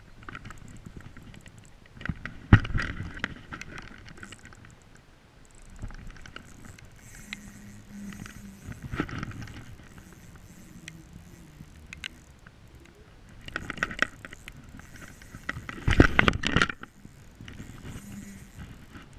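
Rustling jacket sleeve and handling knocks on a chest-mounted camera as a spinning reel is wound in, coming in several louder bursts of scraping and clicks, the loudest near the end, over a light steady patter of rain.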